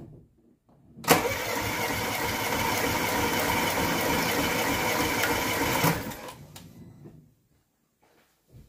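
Car engine being turned over on the starter motor for about five seconds without firing, as during a compression test with a gauge fitted in a plug hole. The cranking starts abruptly, runs evenly, then stops and dies away.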